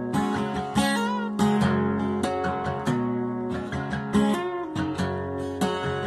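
Acoustic guitar played solo: picked chords and single notes ringing over one another, with a note sliding in pitch about a second in and again just past four seconds.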